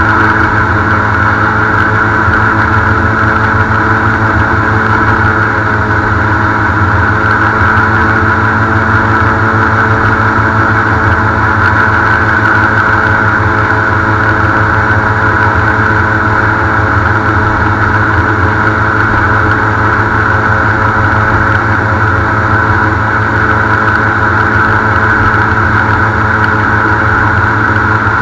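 Airboat's engine and air propeller running steadily at cruising speed: a loud, unbroken drone with no change in pitch.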